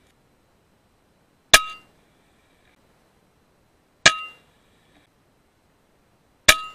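Three shots from an FX Impact M3 .22 PCP air rifle, each a sharp crack with a short metallic ring, about two and a half seconds apart.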